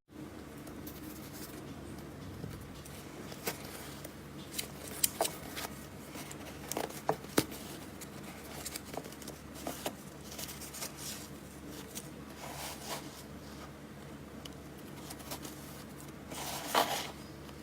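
Knife cutting and carving soap: scattered sharp cracks and scraping, with a louder crunchy stretch near the end.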